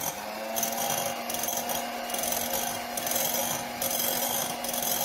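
Electric hand mixer running steadily, its beaters whisking a thick, creamy ice-cream mixture in a bowl. The motor gives a constant hum at one pitch.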